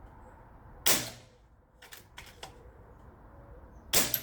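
Two air rifle shots about three seconds apart, each a sharp crack with a short tail, with a couple of fainter clicks between them.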